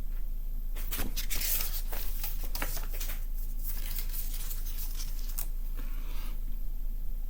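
Paper pages of a CD booklet being handled and turned, rustling in several short bursts, most of them in the first half, over a steady low hum.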